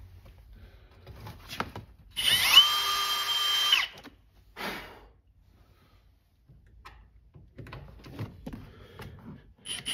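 Ridgid brushless cordless drill spinning up with a rising whine and running steadily for under two seconds, then a brief burst about a second later, as a ground point is prepared on the steel seat frame rail. Light clicks of handling come before and after.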